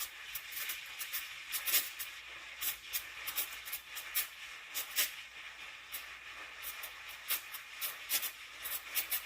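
Espresso machine steam wand hissing, with irregular sputtering crackles through the steam.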